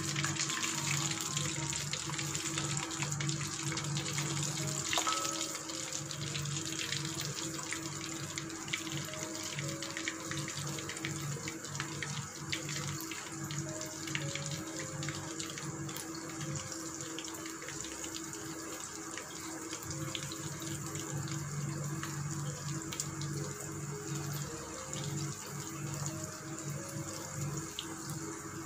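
Chicken popcorn pieces deep-frying in hot oil in a kadai: a steady bubbling sizzle with small scattered crackles. Soft background music with a slow stepping melody plays underneath.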